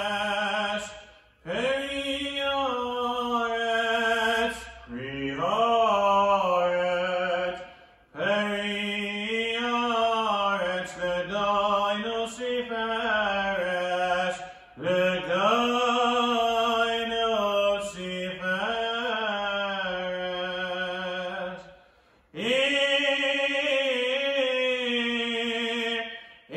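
A chazan (cantor) chanting solo and unaccompanied, a male voice holding long notes that waver in pitch. He sings six phrases, with short breaks for breath between them.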